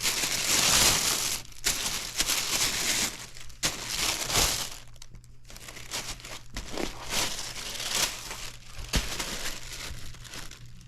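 Shoe box packaging being unpacked: wrapping crinkling and rustling, loudest in the first second and a half, then in shorter bursts with a few soft knocks.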